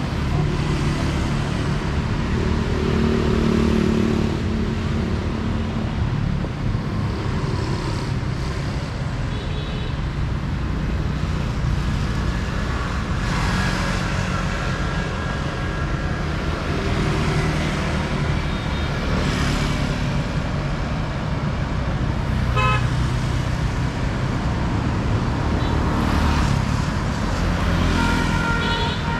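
City street traffic: engines and tyres passing in a steady rumble, with several vehicle horn toots scattered through, the clearest near the end.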